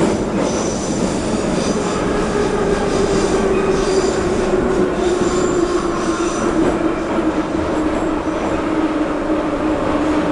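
Moscow metro train running through a tunnel, heard inside the carriage: loud, steady rumble of wheels and running gear with a whine that slides slowly down in pitch. Thin, high wheel squeals come and go through the first part and fade out after about seven seconds.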